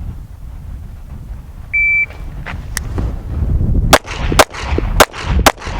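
A shot timer's start beep, then a Smith & Wesson M&P 2.0 pistol drawn and fired. Four quick shots about half a second apart begin roughly two seconds after the beep, over light wind rumble.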